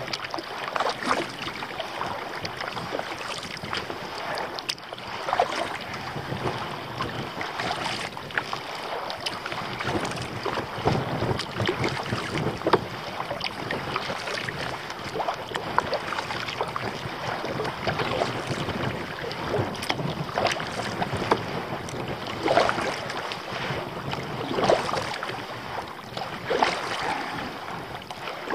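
Kayak paddle strokes splashing and water washing along the hull, a surge about every two seconds, with wind noise on the microphone.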